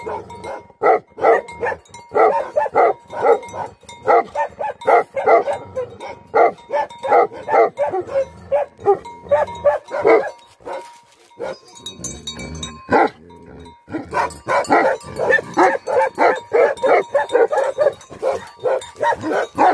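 Tibetan Mastiff barking in rapid, repeated barks, about three a second, with a short break about eleven seconds in before it starts again.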